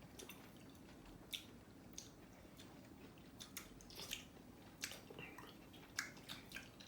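Faint, scattered clicks and crackles of lychees being peeled and eaten, with a few small wet sounds of chewing the fruit.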